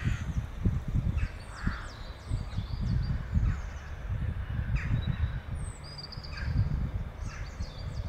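Scattered short, high bird calls and chirps over a constant low rumble of sea and wind on the shore.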